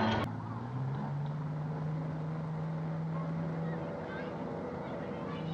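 Quiet city background with a steady low hum or drone that breaks off for a moment near the end and comes back, and a few faint short chirps above it.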